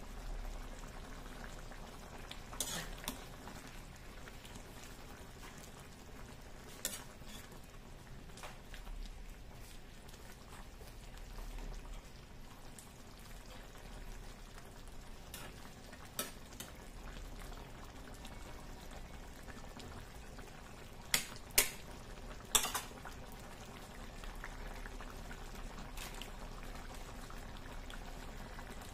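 Pork batchoy broth simmering at a steady boil in a wide metal pan, with a ladle stirring and knocking against the pan a few times; the sharpest knocks come in a quick cluster about three-quarters of the way through.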